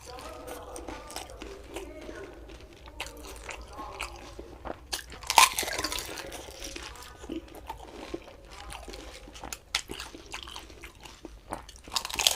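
Fuchka (pani puri) being eaten close to the microphone: crisp puri shells cracking between the teeth, with wet chewing in between. The loudest crunch comes about five seconds in.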